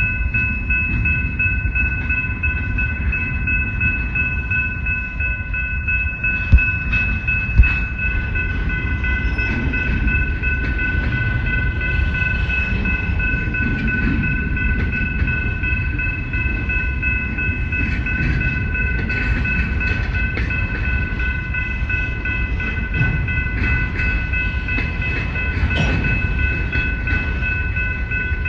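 Freight train passing at close range, its double-stack well cars and autoracks rolling by with a steady low rumble. A high steady tone of several pitches is held over it throughout, and two sharp knocks about a second apart come some six and a half seconds in.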